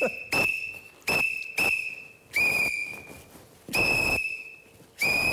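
Police whistle blown in about six short, sharp blasts, each a single shrill note that starts abruptly and fades, spaced irregularly.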